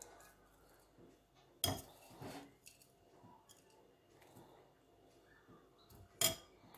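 Kitchen utensils knocking against dishes: two sharp knocks, one about a second and a half in and one near the end, with a softer one just after the first and faint small clatter between.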